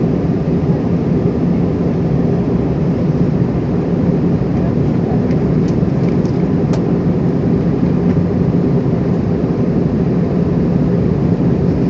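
Steady drone of an aircraft in flight, heard from inside the cabin: engine and airflow noise, deep and constant. A few faint clicks come about halfway through.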